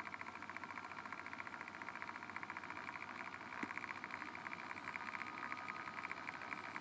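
Steady background buzz with a fast, even flutter and a faint high tone, like a machine running nearby, with a single light click about three and a half seconds in.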